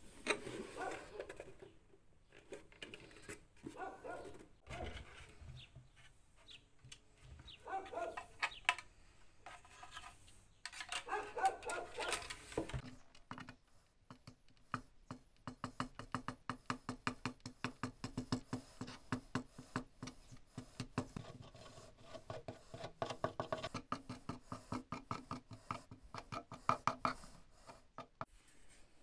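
Handling noise from wooden mandolin parts, then glue squeezed from a plastic bottle along the body's kerfed linings. About halfway through the nozzle starts a rapid, regular clicking, about four or five clicks a second.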